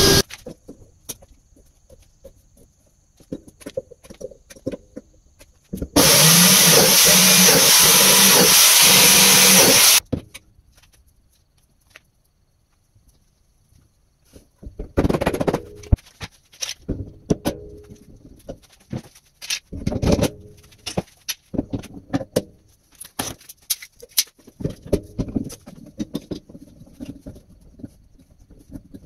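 Woodworking power tool running loudly for about four seconds, then two short bursts of a hand-held biscuit joiner cutting slots in hardwood boards. Scattered knocks and clicks follow as the boards and steel bar clamps are set for a glue-up.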